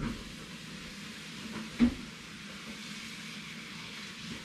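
A steady hiss, with one sharp knock a little under two seconds in.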